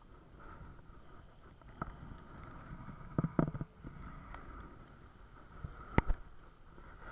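Scattered knocks and clicks, a cluster of them about three seconds in and the loudest near the end, over a faint steady background noise.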